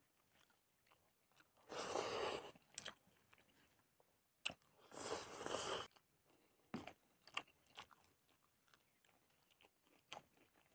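Close-miked eating of rice and boiled fish: soft, wet chewing and mouth clicks. Twice, about two and five seconds in, a louder rushing noise lasts about a second.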